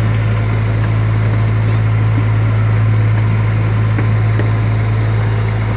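Park tourist train moving along at a steady speed: its engine gives a constant low drone, with a rough rattle and rumble from the running gear over it.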